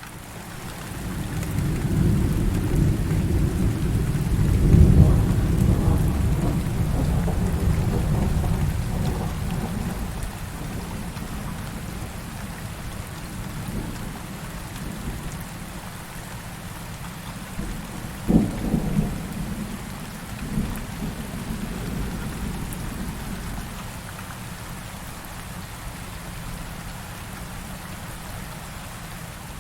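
Thunderstorm: steady heavy rain with a long rolling thunder rumble that swells over the first few seconds and fades away, then a sharper thunder crack a little past the halfway point followed by smaller rumbles.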